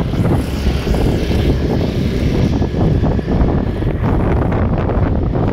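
Strong wind buffeting the microphone of a moving motorcycle, a loud, steady low rumble with the ride's engine and road noise mixed in.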